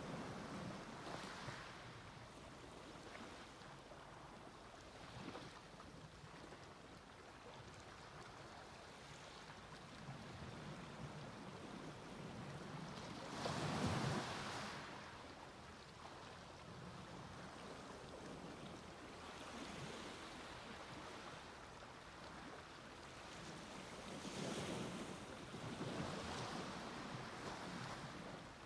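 Small waves breaking and washing up on a beach, a steady wash of surf that swells every few seconds, loudest about halfway through.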